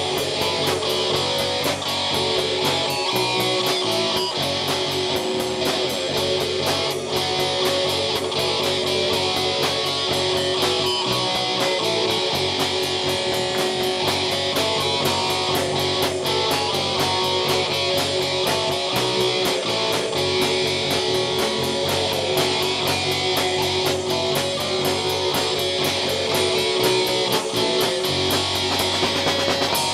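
Live rock band playing an instrumental passage with no vocals: electric guitar to the fore over bass, keyboards and drums, with a steady cymbal beat.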